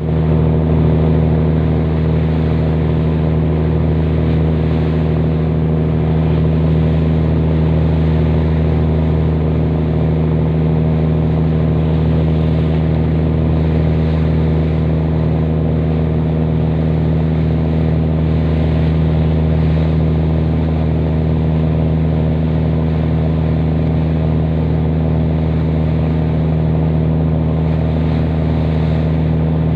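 Boat engine running steadily under way: a deep, even drone with a fast regular throb, over the rush of water.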